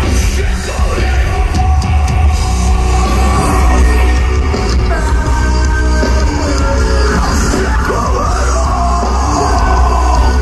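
Live heavy rock band playing: distorted electric guitars, bass and drums under a shouted lead vocal that comes forward about halfway through. Loud and bass-heavy, as heard from the audience.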